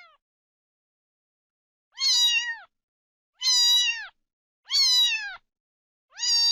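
A kitten meowing: the end of one call, then four high meows about a second and a half apart, each dropping in pitch as it ends.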